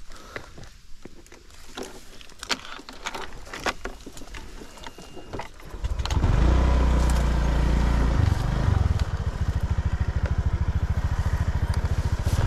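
Scattered clicks and knocks of handling, then about halfway in a small engine comes on suddenly and runs steadily with a fast, even beat.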